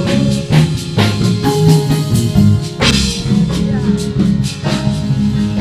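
A live worship band playing between sung lines: drum kit strokes over a stepping bass line.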